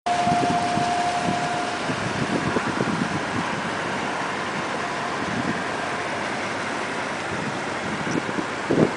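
Boat engine running steadily, heard from on board while cruising, with a thin steady whine over it for the first two seconds.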